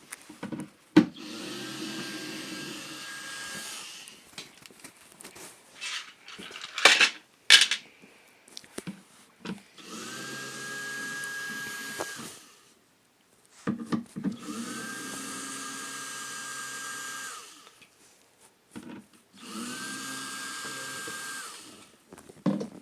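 Power drill with a hex bit running in four spells of about two to three seconds each, unscrewing screws from a speaker cabinet. Its motor whine rises quickly to a steady pitch and then stops each time. Handling knocks and clicks come between the spells.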